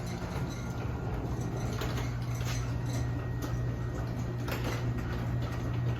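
Garage door opener running, its motor humming steadily as it drives the door, with a few faint clicks and rattles from the door.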